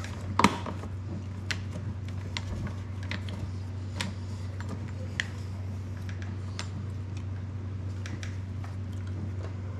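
Irregular light metallic clicks and ticks as a fold-out hex key set is worked on a screw in a Honda EU3000i generator's plastic housing, the loudest click about half a second in. A steady low hum sits underneath.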